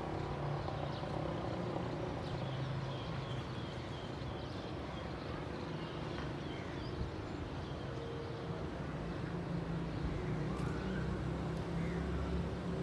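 Outdoor background noise: a steady low hum like a distant engine or traffic, with faint high chirps now and then.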